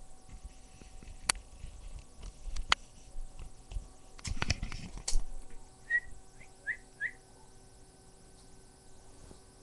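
Knocks and rustling from a handheld camera phone being moved and bumped, loudest in a cluster about four to five seconds in. About six seconds in come four short, high chirps in quick succession.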